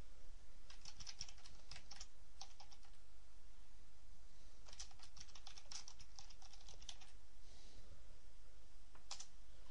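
Typing on a computer keyboard: two bursts of quick keystrokes, then a last keypress near the end, over a steady low hum.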